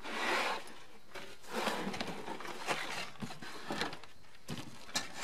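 Cardboard box rustling and scraping as a small engine is pulled up out of it, with a few light knocks in the second half.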